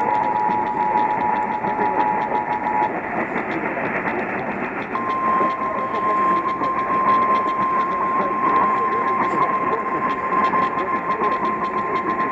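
Emergency Alert System two-tone attention signal heard over a radio receiver, cutting off about three seconds in. After a couple of seconds of static hiss, a single steady warning alarm tone at about 1050 Hz, the NOAA Weather Radio alert tone, starts and holds.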